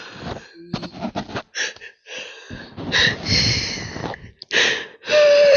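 A woman crying: ragged, gasping breaths and sniffs in uneven bursts, with a short held whimper near the end.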